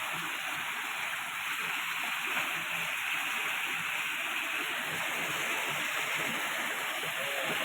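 Decorative three-tier artificial waterfall: water spilling down the basins and splashing steadily into the pool below.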